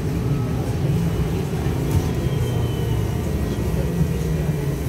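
Cabin noise inside a Trolza-5265.00 Megapolis electric trolleybus: a steady low rumble from the running vehicle, with a faint high whine that falls slightly in pitch about two seconds in, and a few small rattles and clicks.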